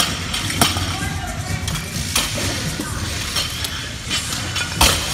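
Clanks and knocks of barbells and bumper plates on a gym floor: a few sharp impacts, the loudest near the end, over background music.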